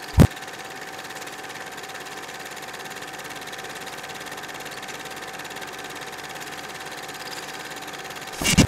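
Film projector running: a steady mechanical whir with a constant hum and a fine, fast clatter. A loud knock comes just after the start, and a louder clatter near the end before it cuts off suddenly.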